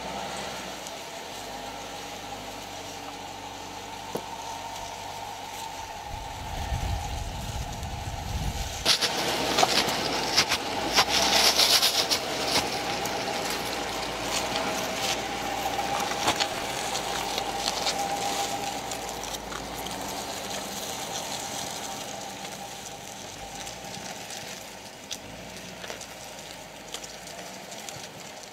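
2014 Jeep Grand Cherokee crawling off-road over wet rock: the engine runs low and steady, a deeper rumble swells about six seconds in, and from about nine seconds there are several seconds of crackling and crunching from the tyres on wet grit and rock.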